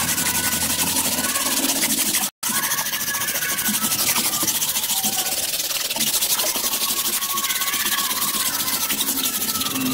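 Electric palm sander running against a wooden board, a steady gritty hiss with a faint motor whine. It cuts out for an instant about a quarter of the way in.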